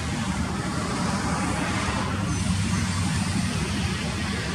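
ATR 42-500 turboprop taxiing, its two Pratt & Whitney PW127 engines and six-blade propellers running in a steady drone with a low hum.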